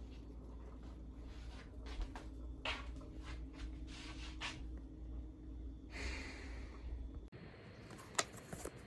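Faint household handling sounds: scattered light taps and clicks and a short swish about six seconds in, over a steady low hum that cuts off abruptly near the end.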